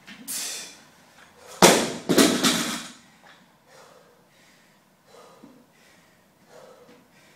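Loaded 80 kg barbell dropped from overhead onto a floor mat: a heavy crash with a second bounce about half a second later, rattling on for about a second. Heavy breathing follows.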